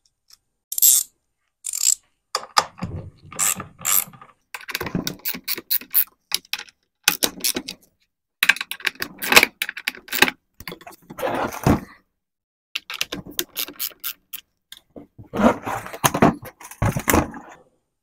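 Hand ratchet with a 10 mm socket clicking in quick runs as bolts holding the pool pump's motor to its housing are backed out, in bursts with short pauses between.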